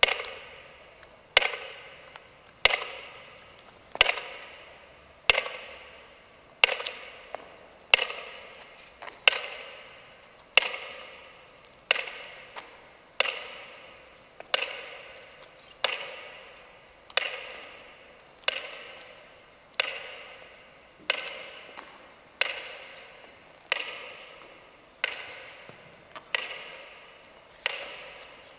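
Mechanical pendulum metronome ticking slowly and evenly, about one tick every 1.3 seconds. Each tick rings out and dies away in a reverberant room.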